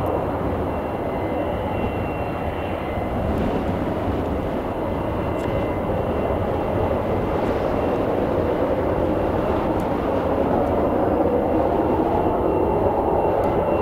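Douglas A-4N Skyhawk's Pratt & Whitney J52 turbojet running steadily on the runway, a broad, even jet noise with a faint high whine held under it.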